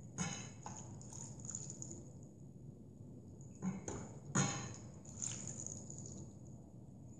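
Asam laksa broth being scooped with a ladle and poured over noodles in a bowl: faint pours and splashes of liquid. A few short knocks come with them, the loudest about four and a half seconds in.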